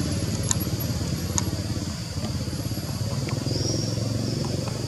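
Motorcycle engine running steadily with a low, rapidly pulsing rumble, with a couple of faint clicks about half a second and a second and a half in.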